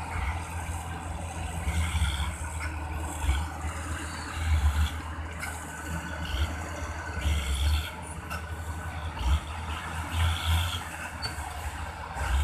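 Heavy diesel engines of a dump truck tipping its load and a working bulldozer: a steady low rumble that swells several times, with short higher-pitched sounds about every two to three seconds.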